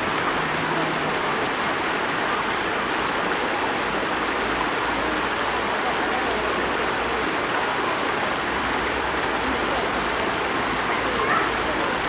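Shallow stream water rushing over a low rocky weir: a steady, unbroken splashing rush.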